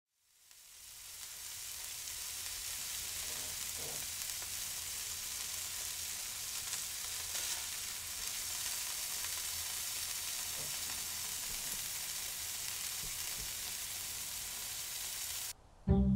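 Food sizzling as it fries in a pan: a steady hiss that fades in over the first second or two and cuts off suddenly near the end. Music with strong low notes starts just after.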